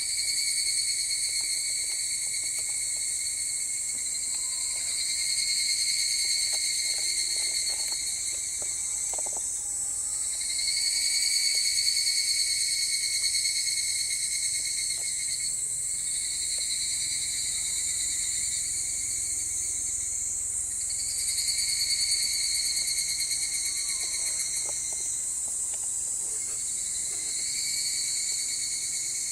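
Higurashi, evening cicadas (Tanna japonensis), calling in a chorus: high, trilled phrases that swell and fade every several seconds and overlap one another.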